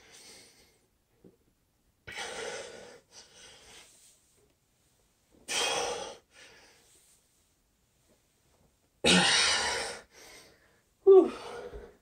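A man breathing hard from exercise exertion: three long, forceful exhales a few seconds apart, each followed by a shorter, fainter breath, then a short groan that falls in pitch near the end.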